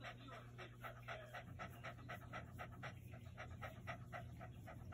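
Boston Terrier panting quickly and evenly, several short breaths a second, with her mouth open and tongue out.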